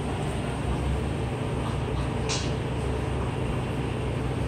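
A steady low rumbling hum, with one short scratchy sound about two and a half seconds in.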